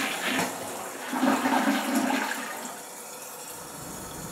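Toilet flushing: a rush of water, loudest for the first couple of seconds, then settling into a quieter steady running as the bowl refills.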